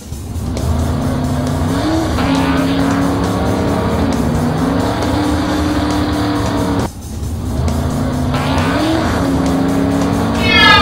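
Cartoon car engine sound effect running at a steady pitch with a brief rise in revs, played over music. The same pattern breaks off about seven seconds in and repeats.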